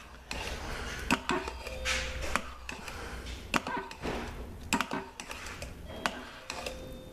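Metal spoon stirring thick cooked soap in a glazed ceramic slow-cooker insert, scraping and clicking against the sides and bottom at an irregular pace.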